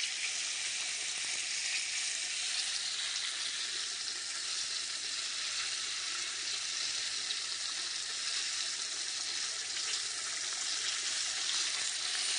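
Egg-washed fish fillets frying in a pan: a steady sizzle.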